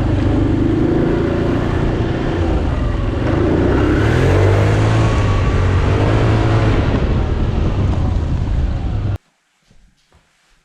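Motor vehicle engine running and revving, its pitch rising and falling, then cutting off abruptly about nine seconds in.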